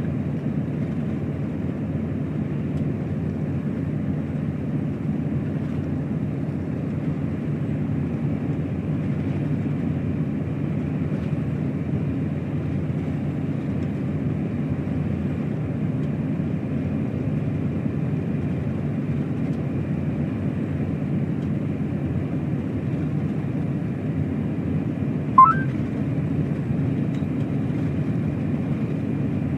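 Truck driving at motorway speed: a steady low drone of engine and tyres. About 25 seconds in comes a single brief rising squeak.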